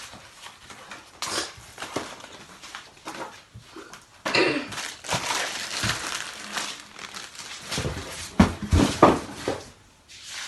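Packaging of a boxed cutting machine being handled and opened: irregular rustling and crinkling of cardboard and wrapping, with a couple of dull knocks near the end.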